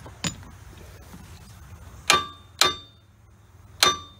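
Hammer blows on steel front-suspension parts, struck to knock a seized part loose. After a light tap about a quarter second in come three hard, ringing metal clangs, two close together about two seconds in and one near the end.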